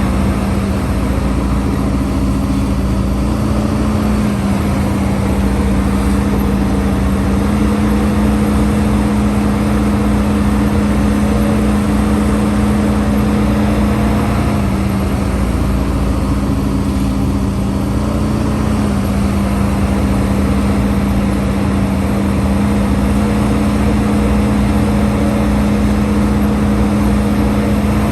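Hydraulic excavator's diesel engine running steadily under work, its pitch stepping slightly up and down several times.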